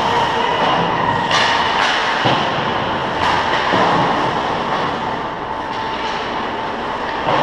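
Ice hockey play on a rink: skate blades scraping the ice and sticks and puck clacking, with several sharp hits in the first half, over a steady rink hum.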